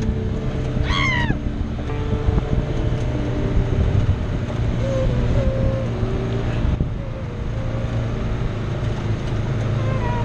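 Side-by-side UTV engine and drivetrain running steadily while driving over a dirt trail, its pitch shifting a little. A brief high, falling squeal comes about a second in.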